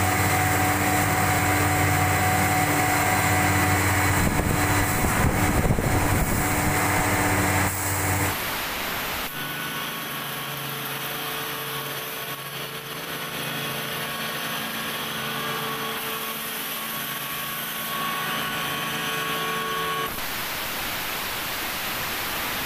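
CKE 18-inch, 185-watt exhaust fans running: a steady motor hum with the rush of moving air. It is loud and close at first, with some rough rumbling between about four and eight seconds in. It then drops and changes tone, and shifts again near the end.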